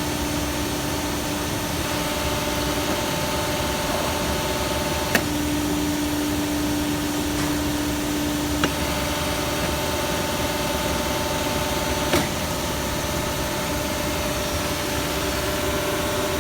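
A machine running steadily with a constant noise and a few whining tones that switch on and off, and a sharp click three times, about three and a half seconds apart. The sound is the subject of a customer complaint about an abnormal noise.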